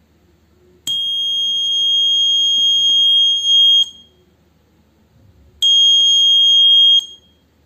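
Buzzer of a homemade fire detector alarm sounding a loud, steady high-pitched tone twice: about three seconds from about a second in, then about a second and a half near the end. The tone is the alarm signal that the IR flame sensor has detected a candle flame.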